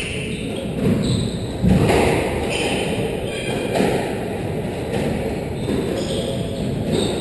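Squash rally: the ball smacked by rackets and hitting the court walls, several sharp hits a second or so apart, with footsteps on the wooden court floor.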